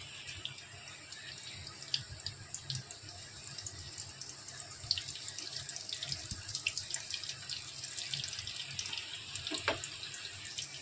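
Vermicelli-coated mutton cutlets shallow-frying in hot oil over a full flame: a steady sizzle with scattered crackles and pops.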